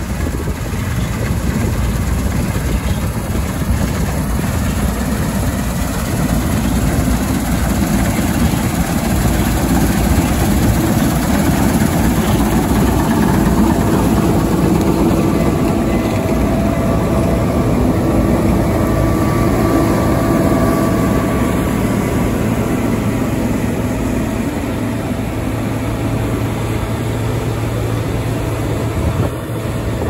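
Case IH 2388 Axial Flow combine harvester running under load while harvesting barley, its six-cylinder turbocharged Cummins engine and threshing drives making a steady, loud mechanical drone. The sound swells through the middle as the machine passes close by, then eases slightly as it moves away.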